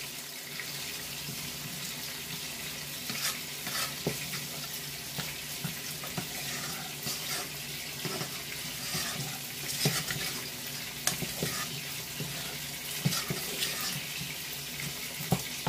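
Wooden spoon stirring chickpea rice in a saucepan, with scattered scrapes and knocks against the pot, over a steady sizzle of salmon frying in the pan beside it.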